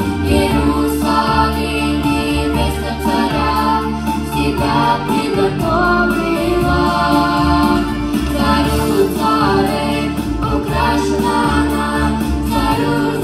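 A group of children singing a Christian song together into handheld microphones, amplified through a sound system. Steady low accompaniment notes run underneath the voices.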